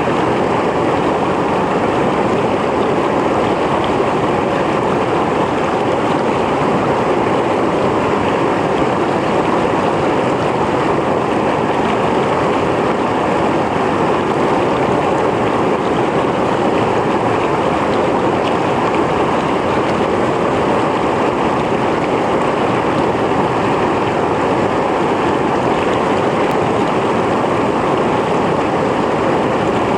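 Mountain stream flowing and splashing over rocks: a steady, even rush of water with no breaks or changes.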